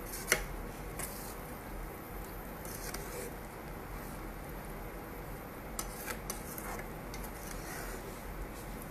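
Metal spatula stirring sticky vermicelli and sugar syrup in a nonstick kadai: soft wet scraping with a few sharp clicks of the spatula against the pan. The loudest click comes just after the start, and there is a quick cluster of them about six seconds in.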